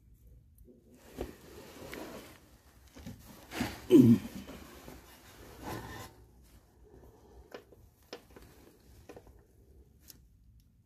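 Hand-fitting an oil filter adapter housing and its bolts against the engine block: metal parts rustling and scraping, loudest about four seconds in with a brief squeaky scrape, then a few light clicks in the second half.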